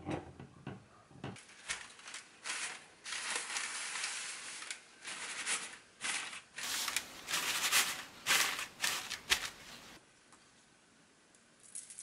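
A paper towel rustling and crinkling as it is pressed and patted over crisp deep-fried spaghetti sticks to blot off the oil, in a run of scratchy bursts. A few light clicks come in the first second.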